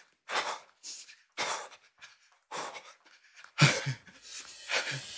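A man breathing hard from exertion during an invisible jump rope exercise: short, heavy breaths about once a second, with a few dull low thumps in the last second and a half.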